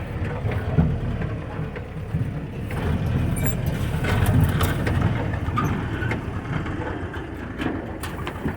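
1959 Jeep's engine running as it drives off-road over big rocks, with scattered knocks and rattles throughout.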